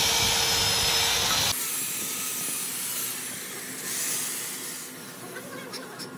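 Heavy handheld electric drill running with a steady whine while its bit works in a valve guide of a cylinder head. The loud running cuts off abruptly about a second and a half in, leaving only a faint hiss.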